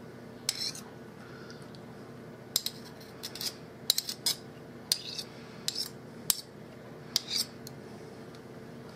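Metal serving spoon scraping and tapping against a bowl as thick mayonnaise is worked off it: about a dozen short, scattered scrapes and clicks.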